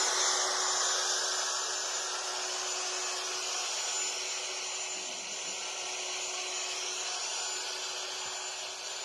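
Vacuum cleaner running steadily, a rush of air with a steady hum under it, slowly getting a little quieter.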